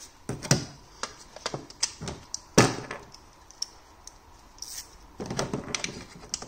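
Irregular clicks and knocks of hands and tools working on parts in a car's engine bay, with the loudest a sharp knock about two and a half seconds in.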